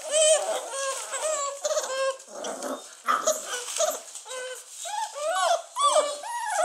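Several 43-day-old basset hound puppies whining and crying together, many short rising-and-falling cries overlapping without a break.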